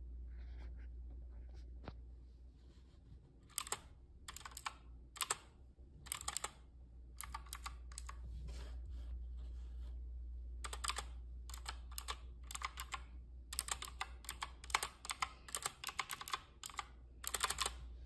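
Clicky blue-switch mechanical keyboard with round typewriter-style keycaps being typed on: bursts of sharp key clicks begin a few seconds in, stop for about two seconds near the middle, then return as a longer, faster run of clicks.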